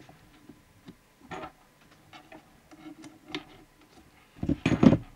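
Handling noise from multimeter test probes and leads being worked on a radio circuit board: scattered light clicks and taps, then a louder clattering rustle lasting about half a second near the end.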